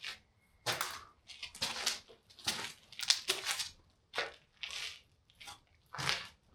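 Footsteps crunching over rubble and debris on the floor of a derelict building, an uneven run of gritty steps about one to two a second.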